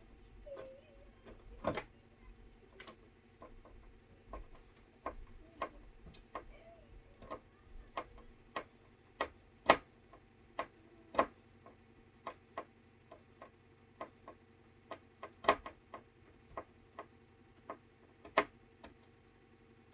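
Irregular sharp clicks and taps, roughly one or two a second with uneven spacing, a few of them much louder, over a faint steady hum.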